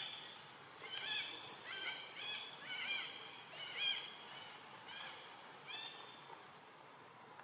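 Animal calls: a series of about nine short, high, rising-and-falling calls, each under half a second, coming about a second in and tailing off near six seconds, the loudest a little before the end of the run. A steady high insect hum goes on underneath.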